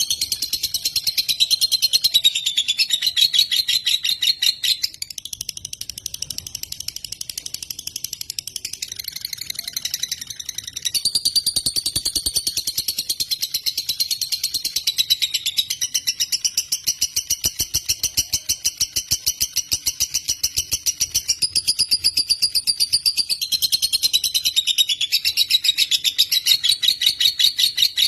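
Lovebird (Agapornis) singing a long, unbroken, high-pitched rapid chattering trill, the kind of extended ngekek that keepers prize in a gacor bird. The trill shifts pitch every few seconds without pausing.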